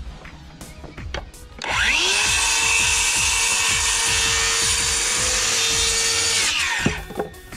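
Cordless chainsaw spinning up about two seconds in and cutting through a pressure-treated deck framing board with a steady high whine for about five seconds, then winding down.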